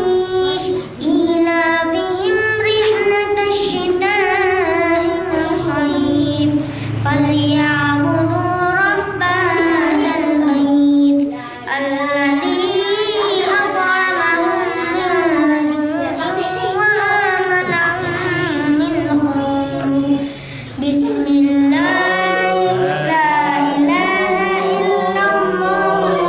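A boy chanting Qur'an verses in Arabic in a melodic recitation style, with long held, ornamented notes and three short breaks for breath.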